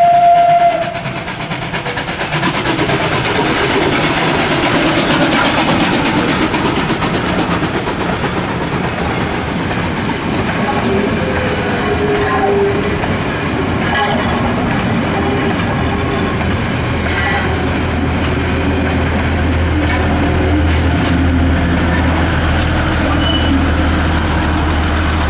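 Steam locomotive 423.0145's whistle cutting off about a second in, then the special train rolling past over the level crossing, its wheels running on the rails as coach after coach goes by. A steady low hum joins about two-thirds of the way through.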